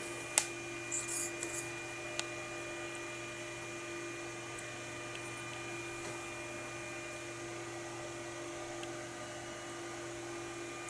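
Steady electrical hum, mains-type, with a sharp click less than half a second in and a few faint light ticks over the next two seconds.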